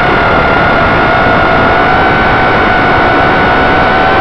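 EMAX RS2205 brushless motors and propellers of an FPV racing quadcopter whining at a nearly steady pitch in flight, over a loud rush of air noise, as heard from the quad's own onboard camera.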